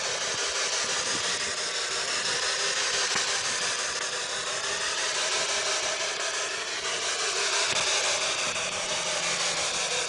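Steady loud hiss of static or heavily boosted background noise, with slowly wavering bands through it. A faint low steady hum comes in near the end, which the uploader takes for a duo of spirit voices humming.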